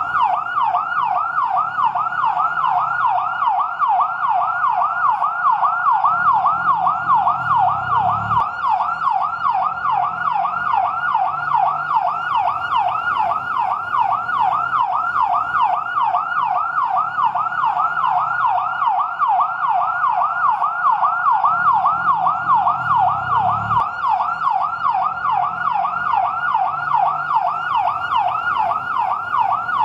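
Fire truck's yelp siren wailing continuously in rapid, evenly repeating up-and-down pitch sweeps. Underneath, a low rumble swells and cuts off sharply twice.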